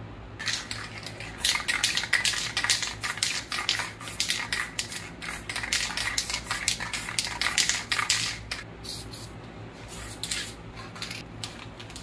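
Aerosol spray paint can sprayed in many short, rapid bursts of hiss, thinning out to a few spaced bursts after about eight seconds.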